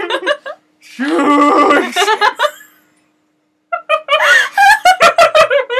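People laughing and giggling hard: a few short giggles, a longer high laugh, a pause of about a second, then a run of quick bursts of laughter near the end.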